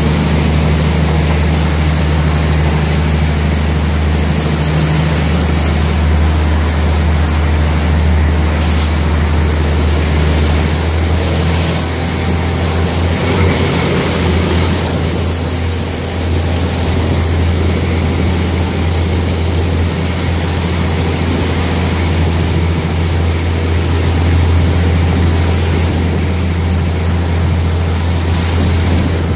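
Diesel train running along the track, heard from an open carriage window: a steady low engine drone under a loud continuous rush of wheels and air.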